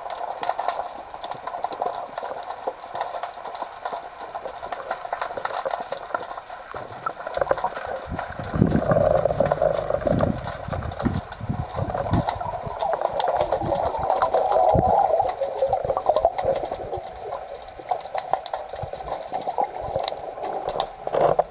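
Underwater sound picked up by a camera in a housing on a speargun: a steady crackle of small clicks with water rushing and knocking against the housing. The rushing grows heavier in the middle.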